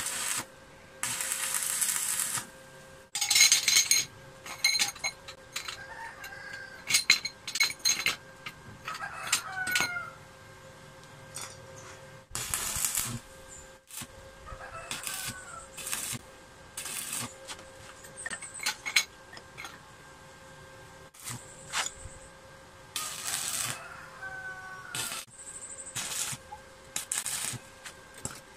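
Stick (arc) welding on steel gate bars: a series of short bursts of crackling arc noise as tack welds are laid, with sharp metallic clicks and taps between them. A few short chirping calls come from the background.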